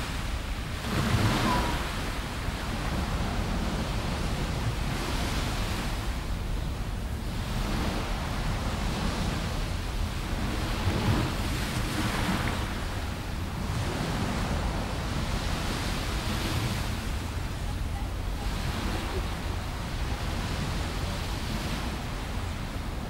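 Small sea waves breaking and washing on the shore, the noise swelling and falling back every few seconds, over a steady low wind rumble on the microphone.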